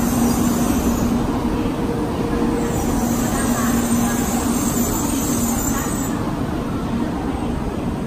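Steady running noise of an N700A Shinkansen train: a constant rumble with a low, even hum and a hiss that fades and comes back.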